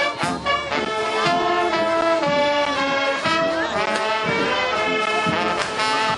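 Brass band playing a tune, with euphonium and sousaphone among the horns: a few short, punchy chords at first, then longer held notes.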